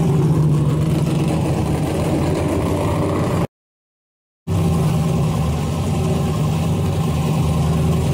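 A drag car's V8 engine idling steadily. The sound cuts out completely for about a second near the middle, then the same idle resumes.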